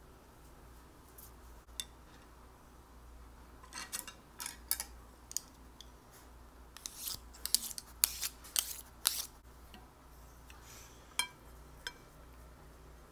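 Wooden chopsticks clicking and tapping: a cluster of quick sharp clicks a few seconds in, a denser run around the middle, and a couple of single clicks near the end.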